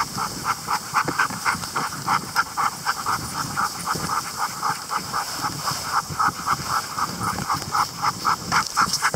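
Greenland sled dog panting hard and fast while running, about four breaths a second, close to the microphone, over a steady hiss.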